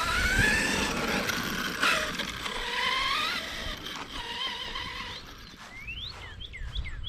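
Arrma Kraton 6S BLX RC truck's brushless motor whining, the pitch climbing with each burst of throttle and dropping off in between. Near the end a run of short, high, falling chirps comes in.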